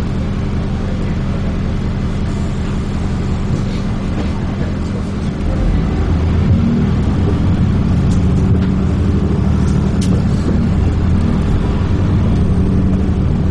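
Dennis Trident 2 double-decker bus running, heard from inside the bus: a steady low engine drone that grows louder about five seconds in as the engine works harder, with a few light rattles toward the end.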